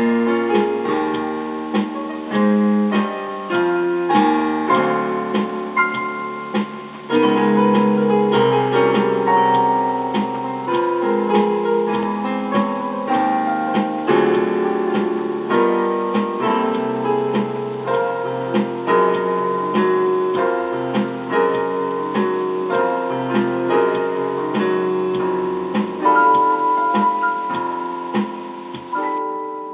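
Instrumental piano music: a busy run of struck notes over held chords and a low bass, fading out near the end.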